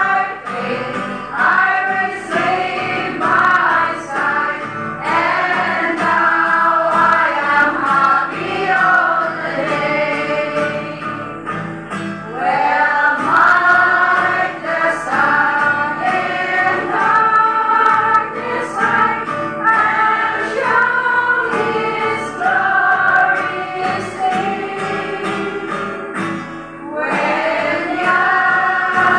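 A choir of women singing a hymn together, with a short break between lines near the end.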